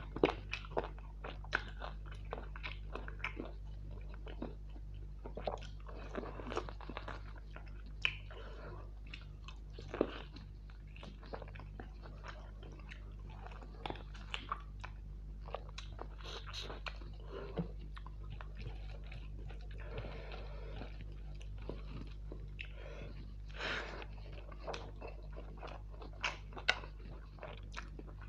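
Close-miked mouth sounds of a person eating mutton curry with rice: chewing and biting, with sharp smacks and clicks at irregular intervals over a steady low hum.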